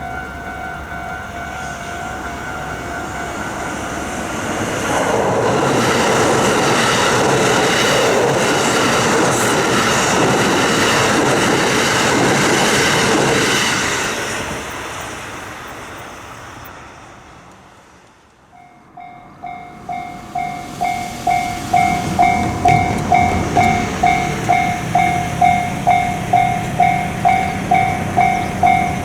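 Japanese level crossing warning bell ringing while a train passes, the train loud for about ten seconds and then fading away. After a brief silence about two-thirds in, another crossing's warning bell starts, ringing steadily about twice a second.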